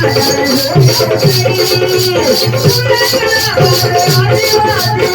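Instrumental passage of an Adivasi folk dance song: a gliding melody over a steady low beat about twice a second, with a shaker ticking fast and evenly on top.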